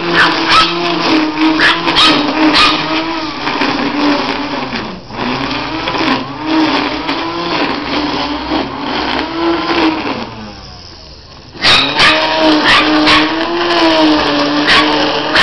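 Electric grass trimmer's motor running with a wavering whine, with many short sharp snaps over it. About ten seconds in the motor winds down and goes quiet, then starts up again a second and a half later.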